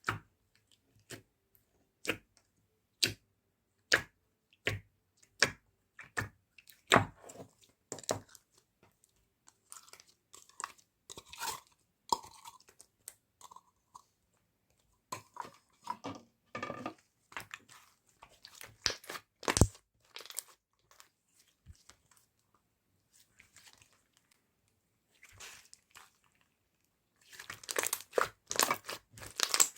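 Crunchy slime being pressed and worked by hand, giving sharp crunching pops about once a second, then runs of denser crackling, busiest near the end.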